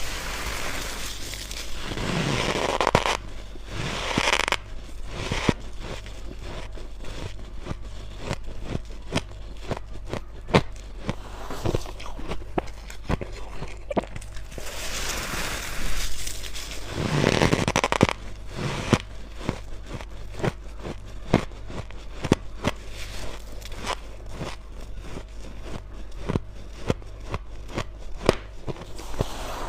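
Close-up biting and crunching of white freezer-frost ice bits: many sharp crackling clicks throughout, with two longer crunching bites, one about two to five seconds in and one around fifteen to eighteen seconds in.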